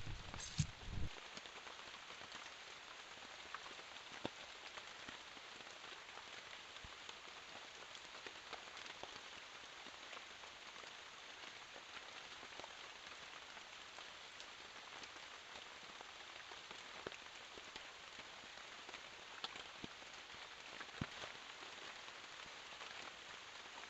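Steady rain falling, a soft even hiss dotted with the ticks of individual drops. A few louder thumps come in the first second.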